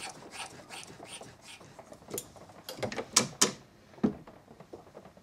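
Drummond Mk2 hand shaper's bed being lowered with its crank handle, giving a steady run of light clicks about three a second. About three seconds in come a few sharp metal clacks and a thump as the ram is worked and still hits.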